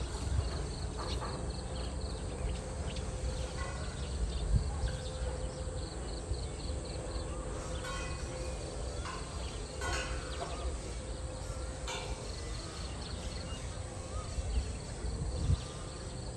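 Outdoor ambience: a steady low rumble with faint repeating chirping calls, broken by a few sharp knocks.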